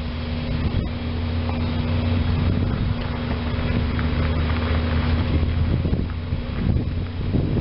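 Distant diesel locomotive engine running with a steady low hum as the train approaches, with wind noise on the microphone.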